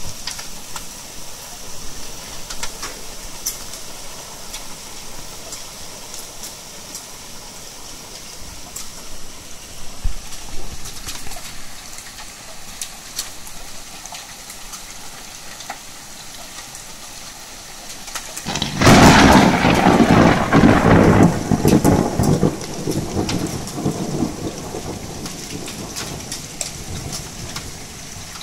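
Heavy rain falling in a thunderstorm: a steady hiss with scattered drop impacts. About two-thirds of the way through, a loud thunderclap breaks in suddenly and rumbles away over several seconds.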